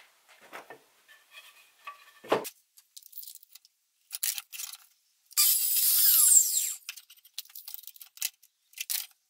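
A tape measure's steel blade being pulled out, a whirring rattle with a falling whine that lasts about a second and a half, about five seconds in. Before it come light clicks and a single knock of a wooden board about two seconds in.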